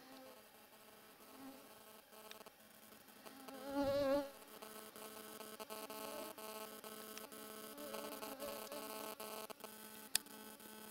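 A flying insect buzzes close to the microphone, with a wavering pitch. It gets loudest about four seconds in as it passes nearest, then goes on as a faint steady hum. There is one short click near the end.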